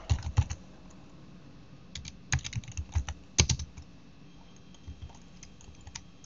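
Typing on a computer keyboard: a quick cluster of keystrokes at the start, a longer run of key presses from about two seconds in that ends with a harder stroke, then a few scattered taps near the end.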